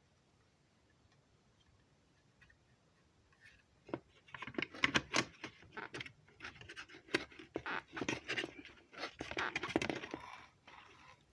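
Hands fumbling with parts inside a desktop PC case: near silence, then from about four seconds in a busy run of plastic and metal clicks, scrapes and rattles as a component is worked into place.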